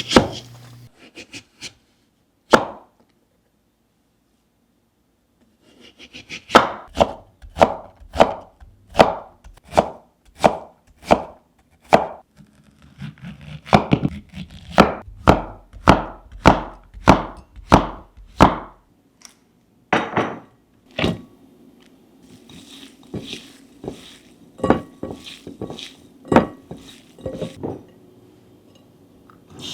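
Knife chopping on a cutting board. After a short pause come steady, evenly spaced strokes about two a second for roughly twelve seconds, then a few slower chops and lighter, irregular taps.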